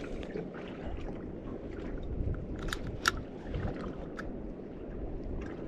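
Steady wind and sea noise around a small open boat, with a few light clicks near the middle.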